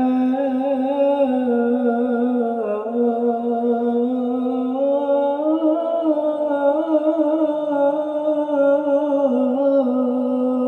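A man's voice singing the Islamic call to prayer (adhan) into a microphone: one long unbroken melismatic phrase drawing out the end of 'hayya ʿala s-salah'. The pitch winds through small ornaments, climbs about halfway through and settles back down near the end.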